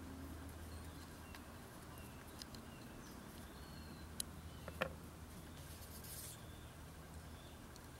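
Faint small clicks and handling of a Kizer Drop Bear folding knife being reassembled by hand, with two sharper metallic clicks about four and five seconds in, over a low steady hum.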